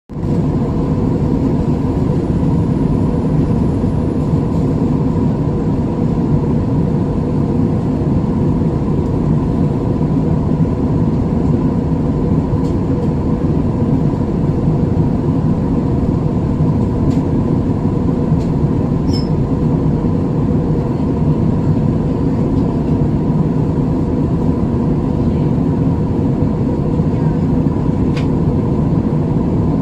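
Steady, loud airliner cabin noise: a deep, unchanging rumble of engines and airflow with a faint hum, and a few tiny ticks.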